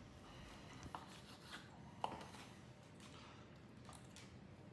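Near silence with a few faint taps and one sharper click about two seconds in: a knife and fork against a wooden cutting board while cutting a stuffed chicken breast.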